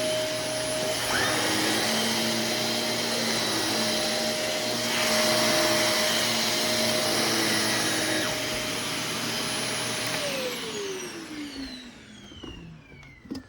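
Vacuum cleaner motor running steadily with a high whine, then switched off about ten seconds in, its pitch falling as the motor spins down.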